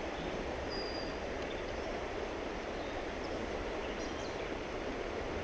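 Steady rush of flowing creek water, an even hiss-and-rumble with no change, and a short faint high chirp about a second in.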